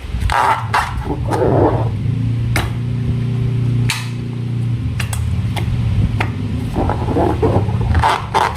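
Slime and rubber balloons being handled: a series of sharp clicks and crackles, with a low buzzing drone from about two to six seconds in.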